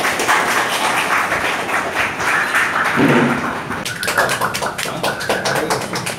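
Scattered hand clapping from a small crowd, with many sharp claps coming thick and fast in the second half over a background of mingled voices.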